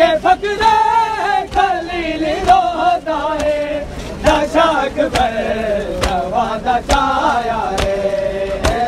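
A crowd of men chanting a noha (Muharram mourning lament) together in a rising and falling melody. Sharp slaps keep a beat about once a second.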